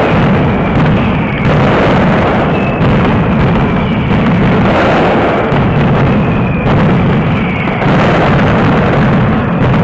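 Mascletà: a loud, unbroken barrage of firecrackers going off overhead, the bangs merging into one continuous roar, with a few brief whistles from whistling firecrackers over it.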